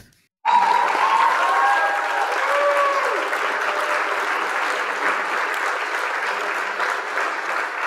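Crowd applauding, starting about half a second in, with a few whoops in the first few seconds.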